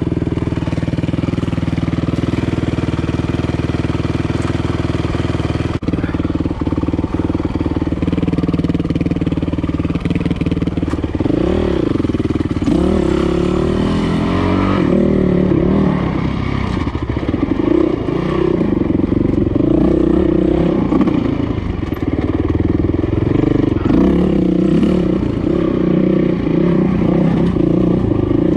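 Dirt bike engine running as it is ridden, holding a steady pitch for about the first ten seconds, then revving up and down repeatedly as the throttle is worked.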